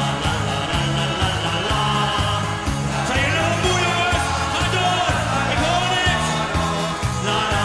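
Live band playing an up-tempo Dutch carnival party song: a steady beat with bass guitar and electric guitar under a sung melody.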